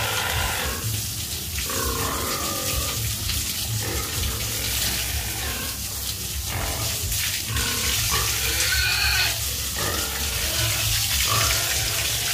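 Piglets grunting and squealing at intervals while a spray of water hisses and splashes over them and the pen floor.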